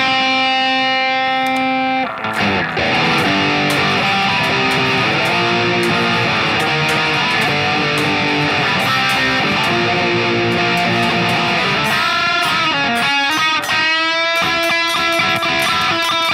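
Electric guitar played through a digital distortion effect: a held, ringing chord for about two seconds, then a fast run of notes, then held lead notes near the end that bend and waver with vibrato.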